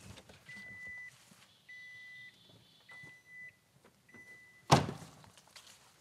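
A pickup truck's door-open warning chime beeping, a steady high tone repeating about once every 1.2 seconds. Just under five seconds in, a door slams shut with a loud thunk and the chime stops at that moment.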